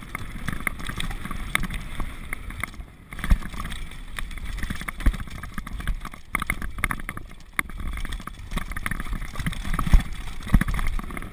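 Downhill mountain bike descending a dirt trail: a steady rumble of tyres and bike over the rough ground, with frequent rattling clicks and knocks as it hits bumps.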